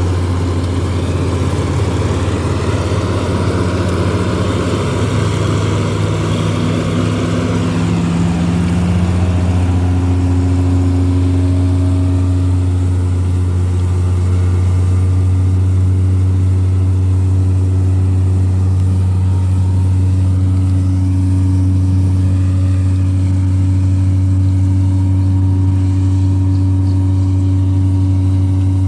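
Combine harvester's engine running steadily with a deep, constant hum. A rough, noisy layer over the hum fades about eight seconds in, leaving an even drone.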